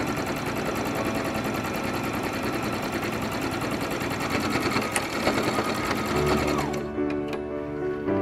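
Electric sewing machine running a straight stitch through fabric, the needle stitching rapidly and evenly, then winding down and stopping a little before the end.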